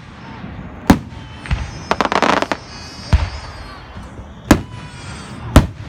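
Aerial firework shells bursting in a string of sharp booms, about five in all, with a dense burst of crackling about two seconds in.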